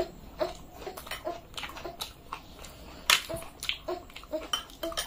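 Close-miked eating: two people chewing luchi and pea ghugni, with many short mouth smacks and clicks coming a few times a second and a sharper click about three seconds in.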